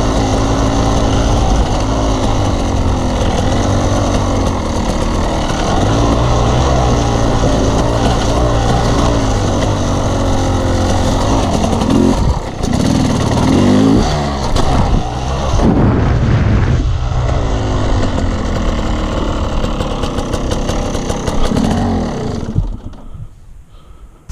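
Off-road vehicle engine running under changing throttle on a dirt trail, its pitch rising and falling. It gives a few sharp revs with short dips in the middle, then drops to a much lower level near the end.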